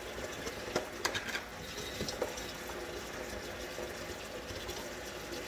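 Kitchen tap running into the sink during dishwashing, with a few light clinks of dishes in the first two seconds.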